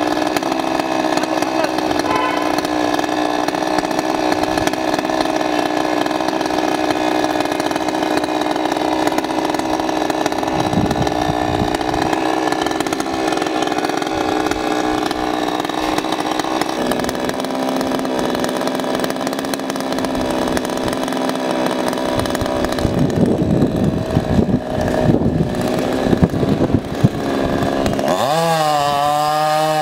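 Petrol chainsaw idling steadily, with a few irregular knocks and rattles past the middle, then revving up near the end.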